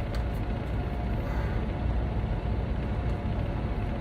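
Steady low engine rumble of an idling vehicle, unchanging throughout.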